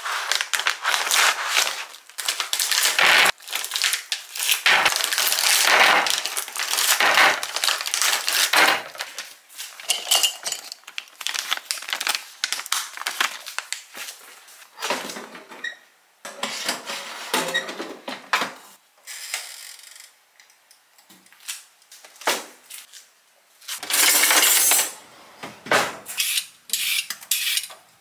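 Kitchen food-prep sounds: dishes, bowls and utensils clinking and clattering, with scraping and rustling in irregular bursts, and a longer noisy stretch near the end.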